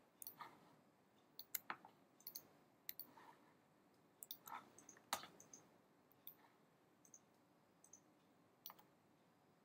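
Faint, irregular clicks of a computer mouse and keyboard while graphic objects are dragged and copied on screen.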